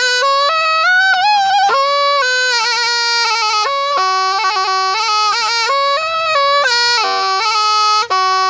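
A Thai pi (reed pipe) played solo: a single melody held almost without a break, stepping between sustained notes with quick bends and fluttering ornaments, and a brief dip near the end.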